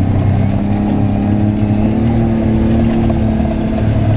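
ATV engine running while driving, its pitch stepping up about two seconds in as it speeds up.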